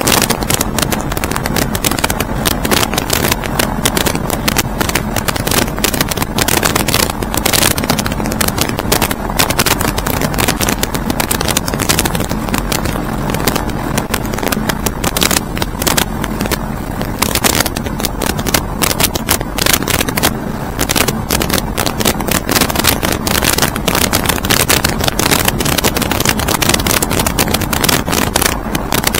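Loud, steady rush of wind buffeting the microphone in flight, crackling throughout, with a faint low hum underneath.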